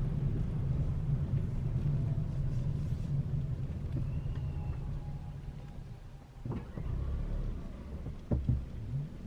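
Car engine and road rumble, a steady low hum that fades about six seconds in, followed by a few sharp knocks.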